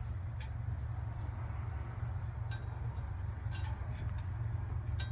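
John Deere 6620 combine running with a steady low rumble, with a few faint clicks over it.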